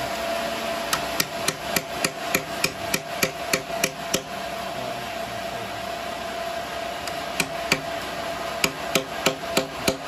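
A ball-peen hammer strikes a hand-held steel punch in sharp metal-on-metal taps, about three or four a second for a few seconds. After a pause of about three seconds, another run of strikes comes near the end. A steady hum runs underneath.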